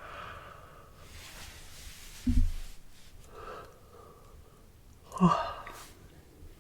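A woman yawning and sighing, long breathy breaths with two louder ones about two and five seconds in that end in a short low voiced tone.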